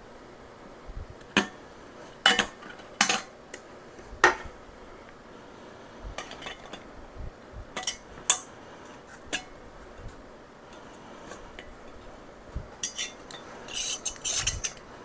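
Utensils clinking against a metal canning funnel and a glass quart mason jar. First a ladle knocks now and then on the funnel while filling is poured. Then a chopstick pokes among the apple slices to work out air bubbles, ending in a quick run of clinks.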